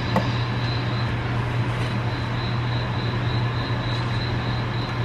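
A steady mechanical hum with a thin high whine and a hiss over it. About a quarter second in, a pat of butter lands in an empty nonstick frying pan with a light tap.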